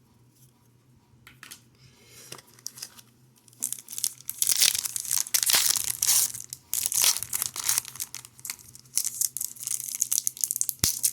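Foil wrapper of a 2021-22 Upper Deck Ice hockey card pack being torn open and crinkled. It starts quietly and turns to a dense crackle a few seconds in, with a sharp click near the end.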